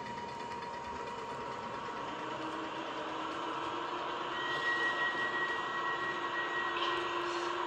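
H0-scale model electric multiple unit (EN57) running along the layout track: a steady mechanical hum. A low whine comes in a few seconds in, and a higher whistle-like tone sounds for a couple of seconds in the middle.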